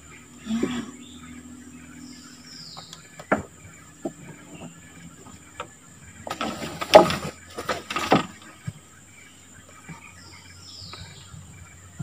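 Forest ambience with a steady high insect drone and a short falling bird call twice. Several sharp knocks and a cluster of loud rustling, scraping noise about six to eight seconds in, from handling in a wooden boat.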